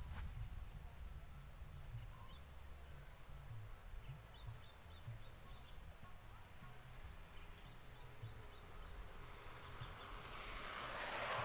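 Quiet countryside ambience with an uneven low rumble on the microphone. About halfway through comes a short run of faint high chirps, and near the end a rush of noise swells up.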